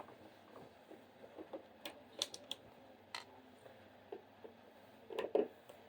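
Faint, scattered light clicks and taps, a handful spread over several seconds with a small cluster near the end.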